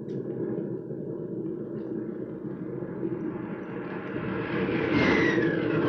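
Radio-drama sound effect of an aircraft engine, its noise swelling steadily louder, with a falling whistle starting about five seconds in, as a plane makes its pass over the rocket range.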